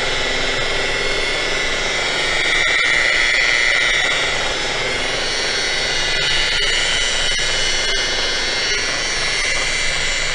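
Electric rotary polisher running steadily with a whine as its buffing pad works polish over an aluminum pontoon tube.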